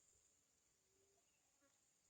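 Near silence, with only a faint steady high-pitched hiss in the background.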